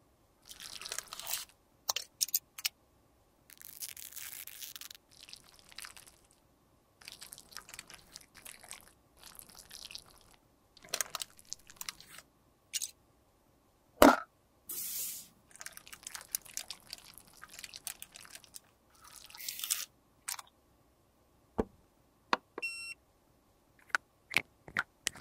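Crisp scraping, crunching and tapping as cosmetics and small tools are worked by hand, in short bursts with pauses between. There is one sharp knock about halfway through and a short electronic beep near the end.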